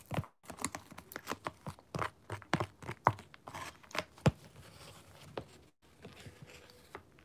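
Metal spoon scraping and scooping a packed white powdery substance in a clear plastic tray: a quick series of sharp crunchy scrapes and clicks, thinning out and getting quieter in the last couple of seconds.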